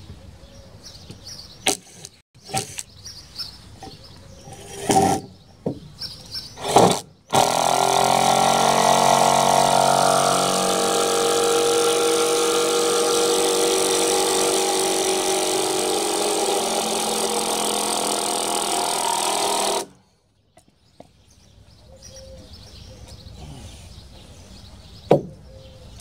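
A motor running steadily with a pitched hum for about twelve seconds, dipping slightly in pitch as it starts, then cutting off suddenly. Several sharp knocks come before it.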